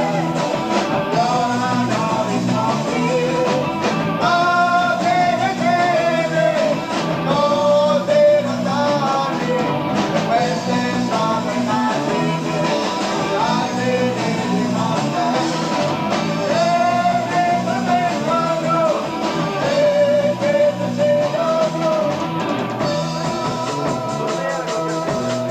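Live progressive rock band playing a song: electric guitar, bass, drums and keyboards under a wavering sung melody line. The sound is dull and boomy, with little top end, as on an amateur cassette recording of a concert.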